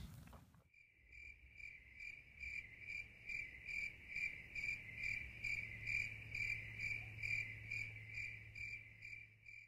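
Cricket chirping in a steady, even rhythm, between two and three high-pitched chirps a second, starting about a second in, over a low steady hum.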